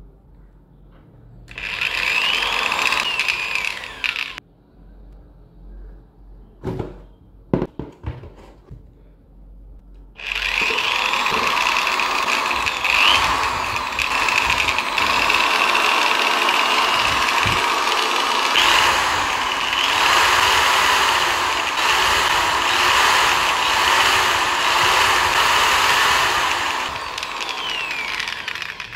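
Montez MZ-TPD-008 700 W electric drill running in two bursts: a short run of about three seconds, then a few sharp clicks, then a long steady run of about eighteen seconds that winds down near the end.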